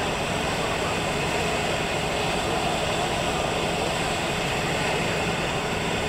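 Steady outdoor city din, a constant rumbling noise with a faint high steady whine over it.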